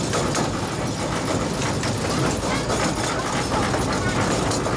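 Ride on a 15-inch gauge miniature train: the cars' wheels rumble steadily on the track, with frequent small clicks and clatter.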